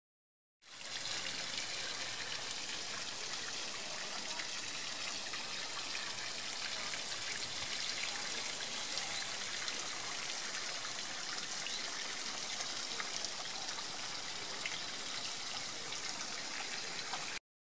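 Steady trickling and splashing of running water with faint drips. It fades in quickly about half a second in and stops abruptly near the end.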